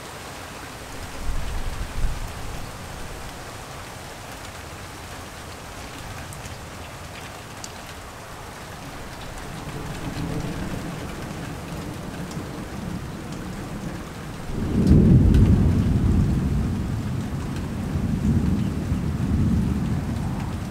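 Steady light rain falling, with thunder: a short low rumble about a second in, a rumble building from about ten seconds, then a sudden loud peal about fifteen seconds in that rolls on for several seconds.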